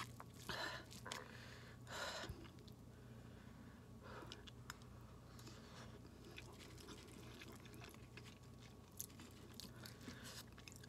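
Faint chewing of a mouthful of instant noodles, in a few soft, short spells of mouth sounds.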